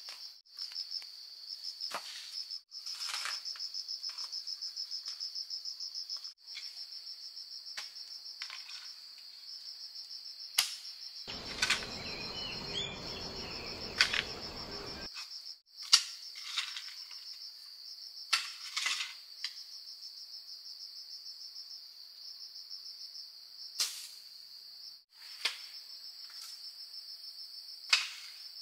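Insects trilling steadily in a high, finely pulsing chorus, with a dozen or so sharp knocks at irregular intervals and a stretch of noise lasting about four seconds near the middle.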